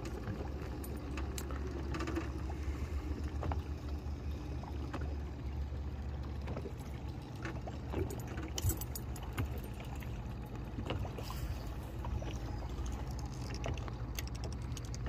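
Water lapping and slapping against a fishing boat's hull, heard as scattered light clicks and splashes over a steady low rumble.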